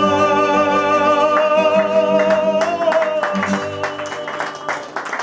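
Closing bars of a fado. The final sung note is held over Portuguese guitar and viola de fado for about three seconds, then the guitars finish with a few plucked chords. Applause begins near the end.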